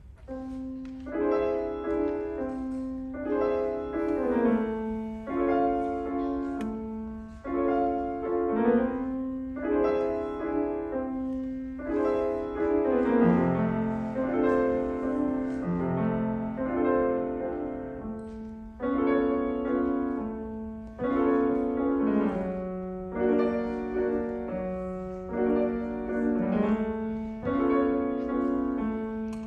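Steinway concert grand piano played solo: chords and short phrases struck about once a second, each ringing and fading before the next, with a busier run of lower notes around the middle.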